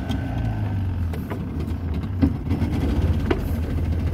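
Small boat's engine running steadily at low speed, a low even hum, with a few short knocks over it.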